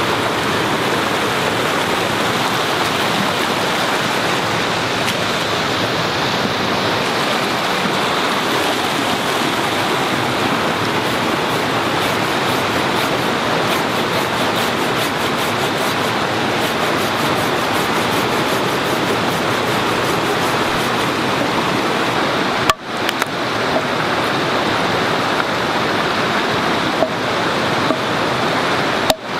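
Steady rush of a small forest stream cascading over rocks, with a split-second dropout about two-thirds of the way through.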